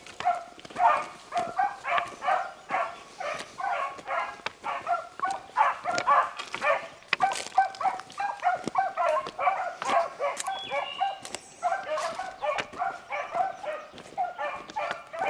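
A pack of beagles baying nonstop as they run a rabbit's scent trail hot, many short overlapping cries several a second.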